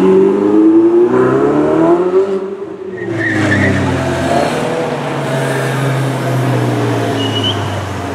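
Ferrari 488 GTB's twin-turbocharged V8 accelerating, revs climbing for about two seconds and then falling away. After that, a lower, steady engine note of cars driving slowly by.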